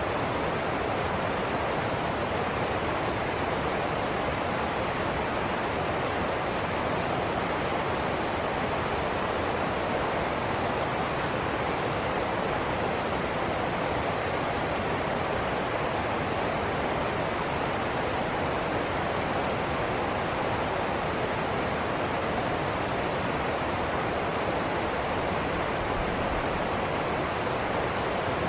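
Shallow rocky river rushing over a small cascade and rapids: a steady, even rush of water that does not change.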